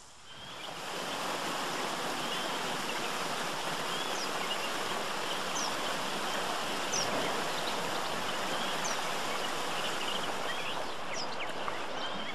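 Creek water rushing steadily over rock ledges and a small waterfall, with a few short high chirps now and then. The sound swells up over the first second.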